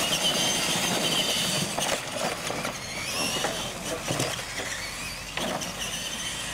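Two radio-controlled monster trucks racing: a steady high-pitched whine from their electric motors and gears, with a few knocks as they run over the ramps.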